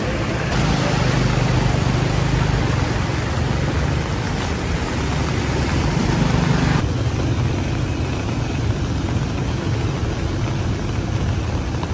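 Motor scooter engines running as they ride through a flooded street, with water noise around them. About seven seconds in the sound changes abruptly to a steadier, duller traffic hum from a jammed road.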